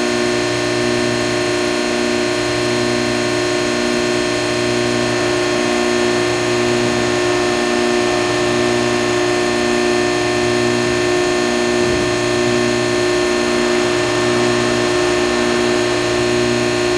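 Hydraulic press brake's pump and motor running, a steady hum of several fixed tones with a regular pulse about twice a second.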